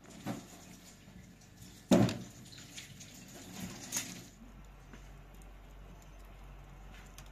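Handling knocks of flat metal kebab skewers and a plate, the loudest a sharp knock about two seconds in. From about four and a half seconds, a wood fire burning with faint crackles over a low steady hum.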